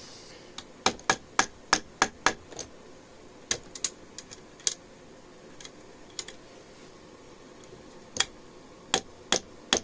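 Light, sharp taps of a plastic-faced mallet on the rear sling swivel of a rifle's wooden stock, driving out the rusted swivel. A quick run of about seven taps comes first, then a few scattered ones, then another run of four or five near the end.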